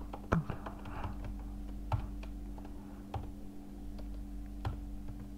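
Typing on a laptop keyboard: a scattered run of light key clicks, irregularly spaced, over a steady low hum.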